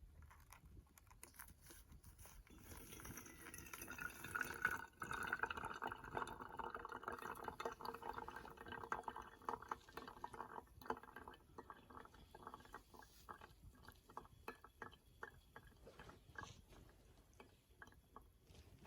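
Water being poured into a vessel for about ten seconds, followed by a run of drips. This fits hot water being poured to brew coffee.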